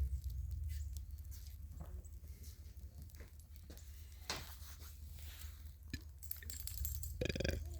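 Scattered soft crunches and pats of footsteps in snow, the loudest about four seconds in and shortly before the end, over a steady low rumble of wind on the microphone.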